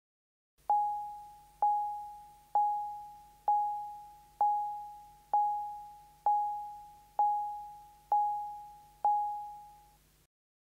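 Ten identical electronic chime beeps, one about every second, each a single pitch that starts sharply and fades away: the audio indicator of a Baha 5 Power sound processor signalling that it has been switched on.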